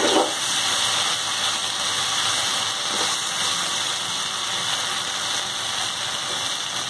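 Soya chunks, potato and tomato frying in spiced oil in a steel kadai: a steady, crackling sizzle, with a metal spatula stirring through the pan at the start. The masala is being fried down (bhuna) until it is well cooked, before water goes in.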